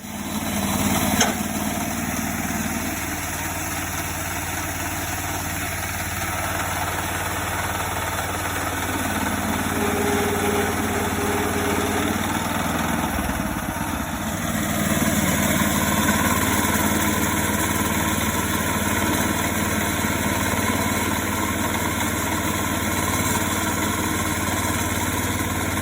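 Range Road 5026 sawmill's engine running steadily, with a short knock about a second in. A little past halfway the sound gets louder and brighter.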